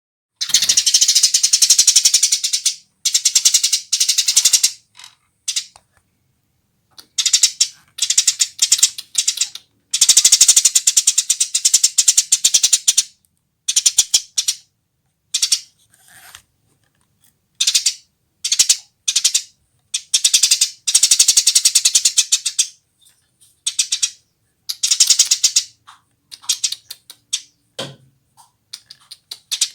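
Female Eurasian tree sparrow chattering in loud bursts of rapid, rattling chirps, each burst lasting up to about three seconds, with short pauses between.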